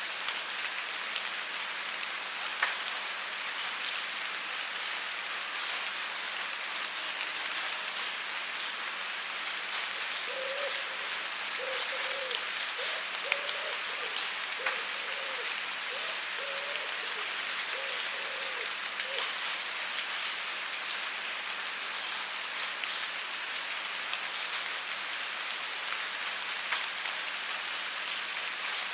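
Steady rain falling on a surface, a dense hiss with many individual drops ticking through it. About a third of the way in, a faint run of short pitched chirps sounds in the background for several seconds.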